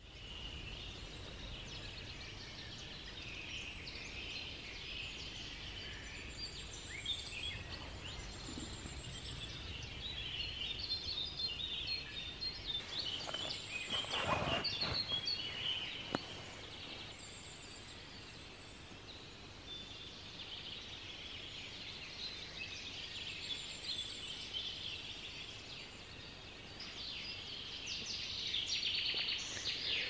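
Forest dawn chorus: several songbirds singing and calling at once in many overlapping short chirps and phrases, busiest around the middle and again near the end.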